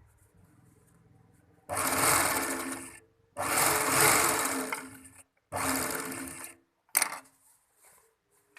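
Fabric overlock (serger) sewing machine running in three short bursts of about one to two seconds each, each starting abruptly and winding down, followed by a brief blip near the end.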